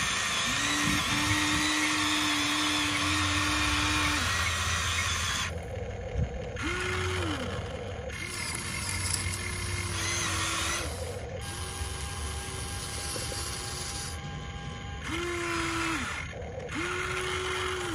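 Electric motors and plastic gearboxes of a Huina radio-controlled toy excavator whirring as it swings its cab and moves its boom, arm and bucket. The whirring comes in several spurts of a second or two, each rising in pitch as it starts and dropping as it stops.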